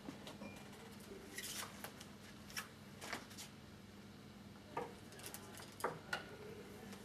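Scattered light clicks and scrapes of painting tools being handled at a palette table, over a low steady hum.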